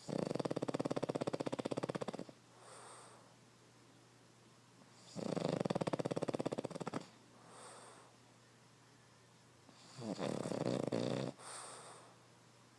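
A Boston terrier snoring: three loud, rattling snores about five seconds apart, each followed by a softer, shorter breath.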